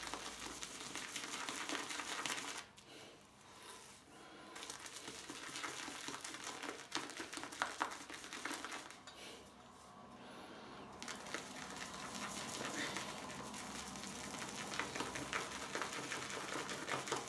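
Shaving brush (Yaqi Timberwolf 26 mm) churning soap lather in a glazed ceramic scuttle: a wet swishing full of fine clicks, easing off briefly about three seconds in and again about nine seconds in. The lather sounds a bit too sticky, which the shaver takes to mean it needs more water.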